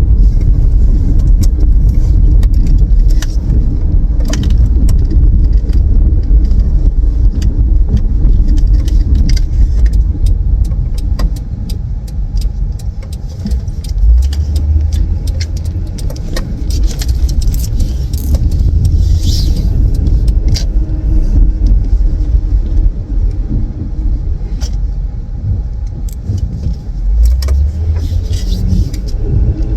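Steady low road and engine rumble inside a moving car's cabin, with scattered small clicks and rattles.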